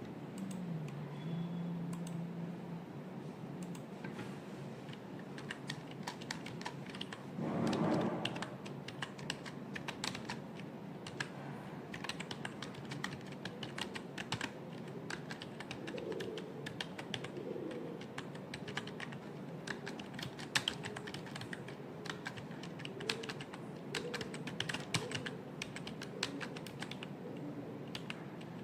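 Typing on a computer keyboard: a rapid, irregular run of keystroke clicks, with a short louder sound about eight seconds in.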